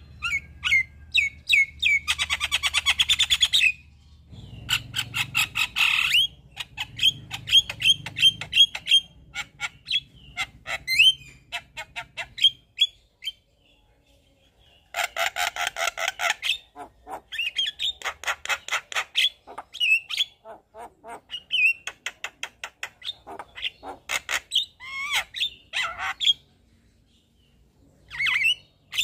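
Javan myna singing a busy, varied song: fast rattling trills, runs of short repeated chirps, harsh squawks and short rising whistles, with a pause of about two seconds midway.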